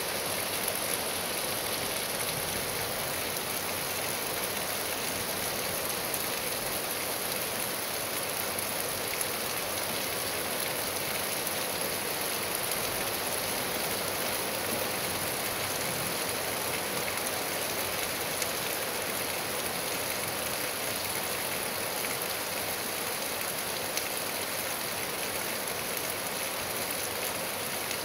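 Steady rain falling on grass and trees, an even hiss that holds at one level, with an occasional single drop ticking louder.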